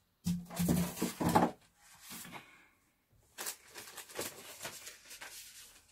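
Hands working at a taped styrofoam box lid: irregular scraping, crackling and tearing noises. They come in a loud cluster in the first second and a half, then as a run of short scrapes and ticks after a pause.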